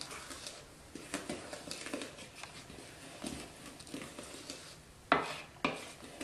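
Wooden spoon stirring a wet batter in a plastic mixing bowl: soft scraping and light clicks of the spoon against the bowl, with two louder knocks about five seconds in.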